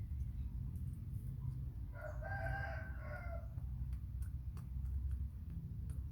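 A rooster crowing once, a single long call about two seconds in.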